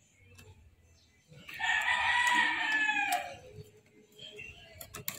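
A rooster crowing once, about a second and a half long, falling in pitch at the end. A few faint clicks are heard around it.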